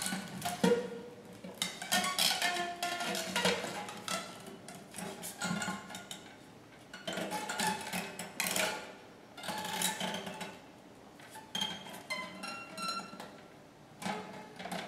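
Two guitars combined into one instrument, played amplified with extended techniques: a small object pressed and scraped against the strings, giving irregular clicks, scrapes and short plucked tones that come in bursts with brief pauses.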